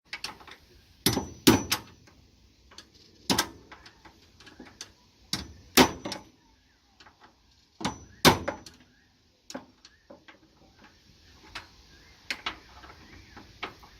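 A series of sharp knocks and clunks, with lighter clicks between them; the loudest come about one second, one and a half, three and a half, six and eight seconds in.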